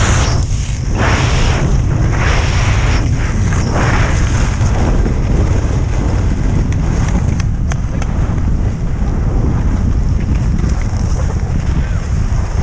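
Heavy wind buffeting on a helmet-mounted camera's microphone while skiing, with the hiss of skis turning across packed snow in several swishes during the first four seconds, then a steadier rush of sliding.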